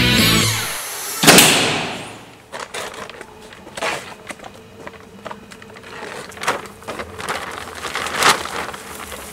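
A single loud bang about a second in, dying away over roughly a second. It is followed by scattered small cracks and rustles, like footsteps and branches being pushed through bushes.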